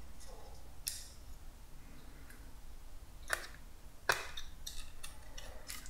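A few faint, sharp clicks and taps as plastic and metal phone parts are handled: the glued frame and the new screen being fitted together in gloved fingers.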